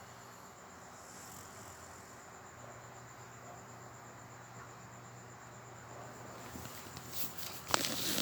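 Soft snoring from a sleeping pet: a faint low rumble drawn out over a slow breath of several seconds. Near the end come a few sharp knocks and rustles, the loudest sounds here.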